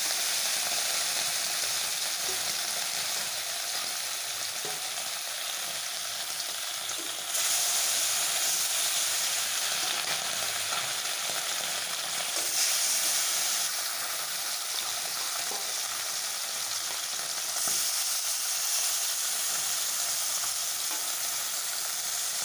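Food frying in hot oil in a pan, a steady sizzle, which steps up and down in loudness a few times.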